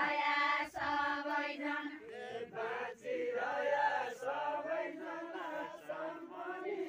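A group of women's voices singing a Nepali deuda song together, a chant-like melody with long drawn-out notes and brief pauses between lines.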